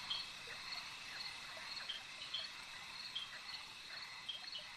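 Faint night chorus of crickets chirping steadily, high-pitched and continuous, with short repeated chirps over it.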